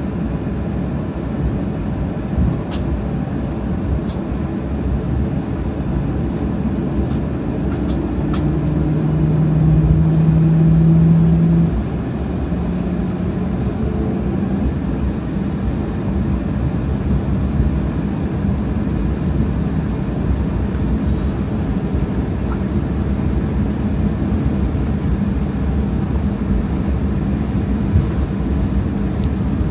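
Cabin noise of a Boeing 737-800 taxiing: the steady low rumble of its CFM56 engines at low thrust. A hum grows louder about eight seconds in and cuts off sharply about four seconds later.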